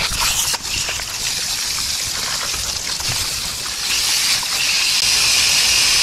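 Garden-hose spray nozzle jetting water against a heat pump's condenser coil: a steady hiss and splatter of spray that grows louder about two-thirds of the way through.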